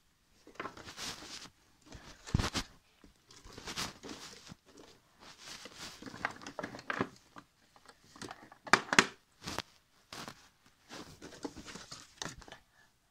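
Rummaging through a cluttered drawer of paper and plastic odds and ends: irregular rustling and crinkling with a few knocks, the sharpest about two and a half seconds and nine seconds in.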